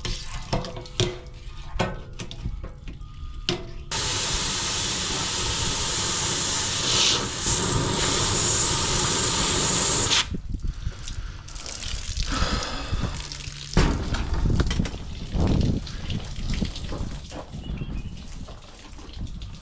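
A tool scrapes and knocks inside an RV water heater tank as hard-water sediment is raked toward the drain hole. About four seconds in, water rushes out steadily for around six seconds, then stops suddenly, and the scraping and knocking resume.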